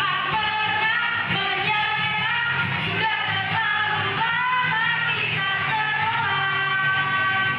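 A mixed group of young students singing a song together into microphones over a steady instrumental accompaniment.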